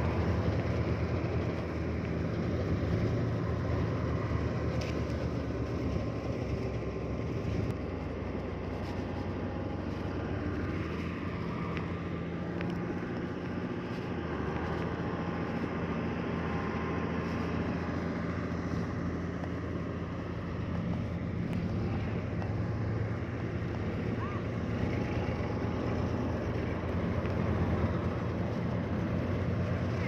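Heavy diesel earthmoving machinery running steadily at an even engine pitch, with a few faint clicks and clanks in the middle.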